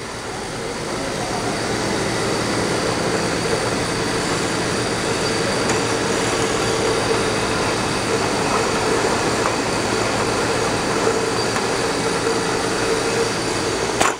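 Empty aluminium cans jostling and clattering against each other as a can-line conveyor and depalletizer carry a mass of them along, a dense steady rattle with a steady hum under it. It grows louder over the first couple of seconds, then holds steady.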